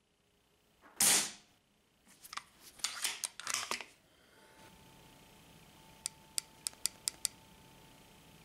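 Benjamin Gunnar .25 PCP air rifle firing once, about a second in, a short sharp report. It is followed by clicks and rattles of the gun being handled, and a quick run of about seven small ticks near the end.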